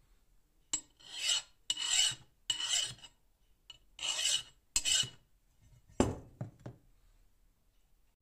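Hand file rasping along the edge of a forged steel cleaver blank made from bearing steel, five separate strokes, cleaning up the blank's edges after forging. About six seconds in comes a sharp knock and two lighter ones as the file is set down on the concrete floor.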